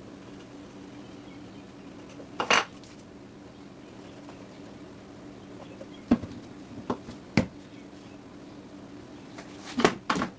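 Scattered sharp clacks and knocks of plywood pieces, glue bottle and tools being handled on a workbench during a glue-up, over a steady low hum. There is one knock about two and a half seconds in, three in quick succession around six to seven seconds, and a short clatter near the end.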